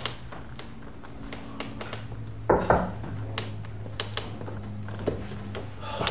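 Hands tapping and patting on a stone-clad wall, with light knocks scattered throughout and two louder knocks about two and a half seconds in, over a low steady hum.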